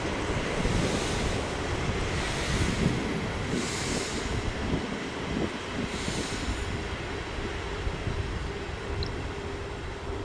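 ER2T electric multiple unit approaching on the rails, a continuous rumble of wheels on track with a few passing swells of hiss. A steady hum sets in near the end as the train draws closer.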